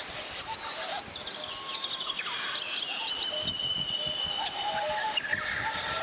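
Mountain valley stream flowing steadily, with birds chirping and calling over the rush of water.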